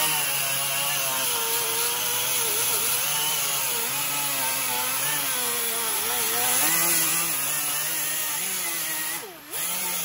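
Air-powered right-angle die grinder with a surface-conditioning disc running against a cast-iron exhaust manifold, scrubbing old gasket material off the flange. It gives a steady high whine whose pitch wavers as the disc is pressed in. It drops off briefly about nine seconds in, then picks up again.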